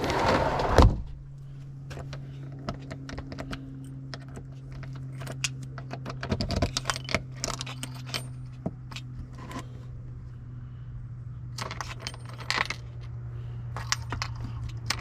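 A bunch of keys jangling and clicking, handled at a newly fitted sliding-door handle lock, with a loud rustling clatter in the first second and another about twelve seconds in. A steady low hum runs underneath.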